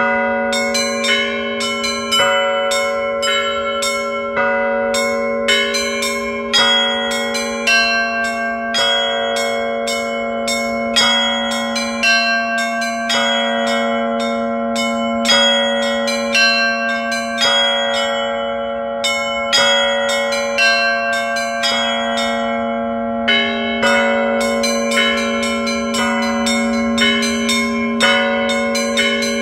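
Russian Orthodox church bells rung in the Moscow tradition by a single bell ringer. Small bells are struck in a quick, continuous, repeating pattern over the steady hum of a larger bell.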